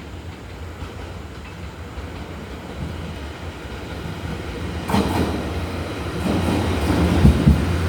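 Train running on the rails, growing steadily louder, with a sudden rise about five seconds in and low clacking thumps of the wheels over rail joints near the end.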